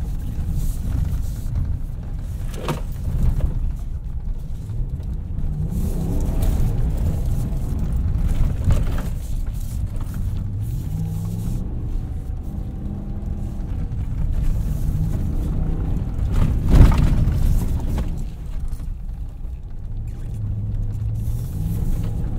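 A Ram 1500 Rebel's 5.7-litre Hemi V8, heard from inside the cab, rising and falling in pitch as the pickup drives over rough grass. The truck's suspension and body knock over bumps, once shortly after the start and loudest about three quarters of the way through.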